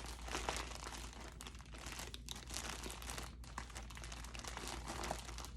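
Packaging crinkling as skeins of yarn are handled and turned over: a continuous run of small crackles and rustles.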